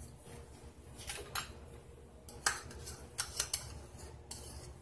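Spoon and small kitchen containers clinking: a scattered series of light clicks and knocks, the sharpest about two and a half seconds in.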